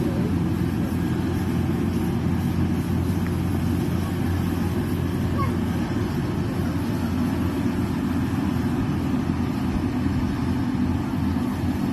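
Rice harvester running steadily, its engine droning evenly with no change in speed.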